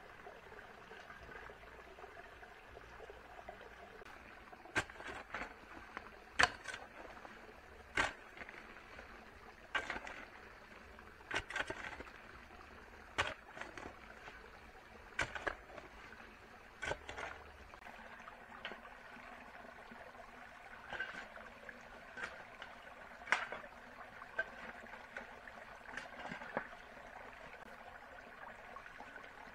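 A series of sharp knocks or taps, about twenty, spaced irregularly one to two seconds apart, over a steady background hiss; they start about five seconds in and stop a few seconds before the end.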